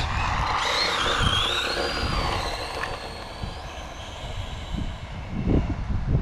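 Brushless electric motor of a Hobao EPX RC truck (5400kv, on 2S) whining as the truck speeds away on a wet road, the pitch climbing and wavering, then holding high before fading out after about three and a half seconds.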